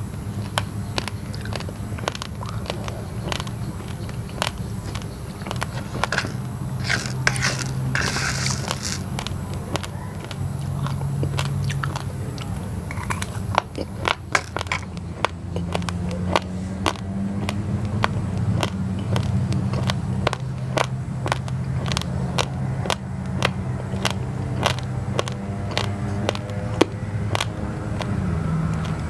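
Raw basmati and glutinous rice grains cracking between the teeth, a long run of sharp crunches as they are chewed. A steady low hum runs underneath.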